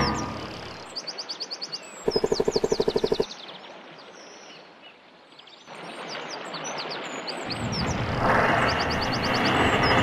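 Birds chirping, with a loud, fast pulsing call lasting about a second, a couple of seconds in. Over the last couple of seconds a low rumbling noise swells up under the birdsong.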